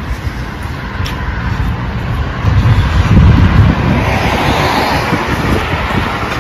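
A motor vehicle passing close by on the road: engine rumble and tyre noise swell to their loudest about three seconds in, then ease off.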